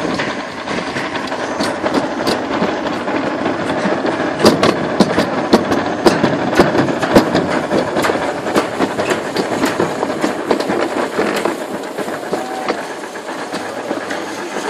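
Summer toboggan sled rolling down a metal trough track: a steady rattling rumble with many sharp clicks and knocks, busiest and loudest from about four to eight seconds in.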